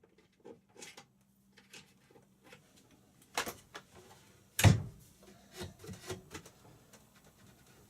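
Scattered clicks and knocks of wooden parts being handled, with a louder knock about three and a half seconds in and the loudest thump about a second later.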